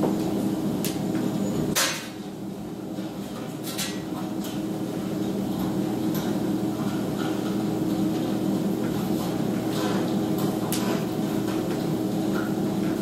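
A steady low droning hum with a few scattered sharp knocks and crackles. The loudest knock comes just under two seconds in, and the hum dips briefly after it.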